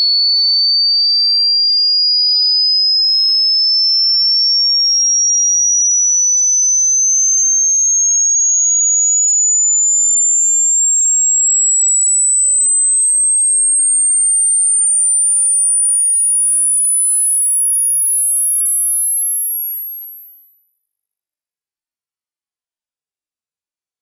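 A single pure test tone sweeping steadily upward in pitch at constant loudness, from a high whistle up toward the top of human hearing. This is a hearing-test frequency sweep, meant to find the highest pitch the listener can still hear.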